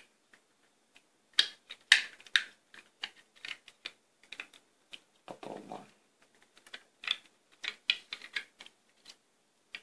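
Irregular sharp clicks and taps of hard plastic: the small USB speaker's housing and speaker driver being handled and pressed together during reassembly.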